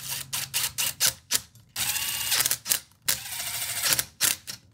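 Cordless DeWalt impact driver running in short bursts, driving the screws of the top cap on a Hitachi NV45AB2 coil roofing nailer, with sharp clicks between the bursts.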